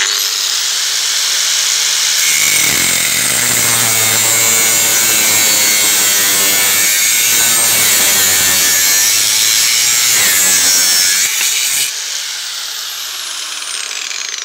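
Makita GA5030R 720 W angle grinder with a 1 mm steel cut-off disc: it switches on and spins up, then cuts through a steel square tube for about nine seconds. Near the end the cut is through, the load drops off and the motor winds down with a falling whine.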